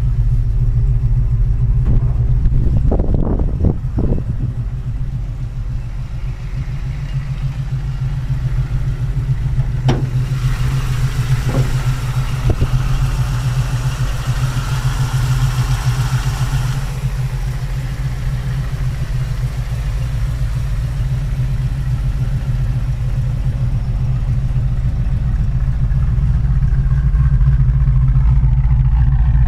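Chrysler Valiant Charger's V8 idling steadily, with a few short knocks about three seconds in and again about ten to thirteen seconds in, and a hiss over the idle in the middle stretch.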